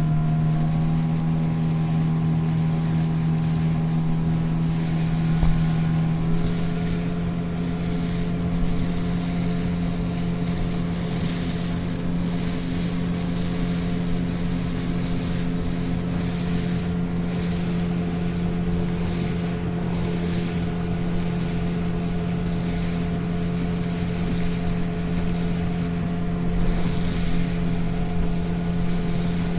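Motorboat engine running steadily under way, with wind and water hissing past. The engine note shifts slightly about six seconds in.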